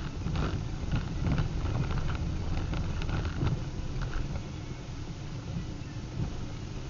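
Car being driven slowly, its engine and tyres making a steady low rumble heard from inside the cabin, with a few faint clicks in the first few seconds.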